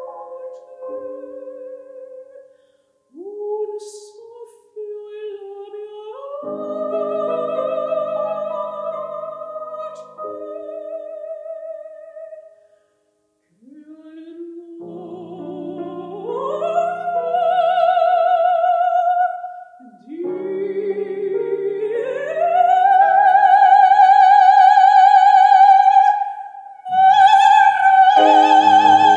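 Operatic soprano singing an Italian verismo aria with wide vibrato, phrase after phrase climbing upward and growing louder, to a long high note held in the last third, broken once by a breath and taken up again, over a softer accompaniment.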